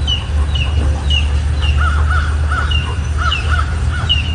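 Birds calling: a short high chirp repeats about twice a second, and in the middle a run of about six lower, harsher calls joins in. A steady low hum runs underneath.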